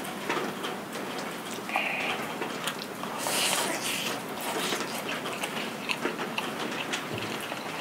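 Steady rain falling, heard as an even hiss throughout. About three seconds in, a bite and soft chewing of a piece of pan-fried pollock jeon are picked up close to a clip-on microphone.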